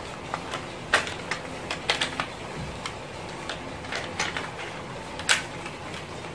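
Irregular light clicks and taps, about a dozen, from small plastic and metal electrical parts being handled while a plug or socket is rewired.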